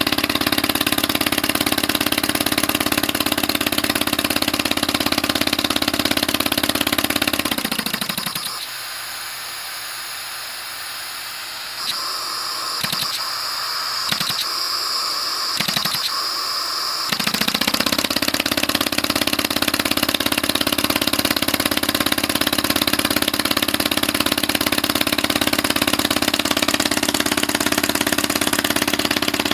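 Homemade two-stroke engine running on compressed air, a steady fast running sound. About a quarter of the way in it winds down and stops, leaving a hiss of escaping air and a few sharp knocks, then a little past halfway it spins back up and runs steadily again.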